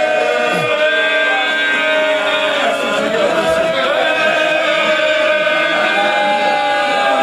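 A man's voice chanting a mournful elegy (masaib) in long, drawn-out held notes that bend slowly.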